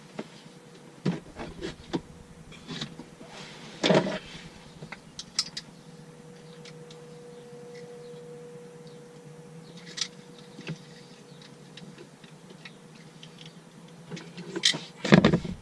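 Scattered clicks and knocks of hand tools and parts being handled, the loudest cluster near the end, over a faint steady hum.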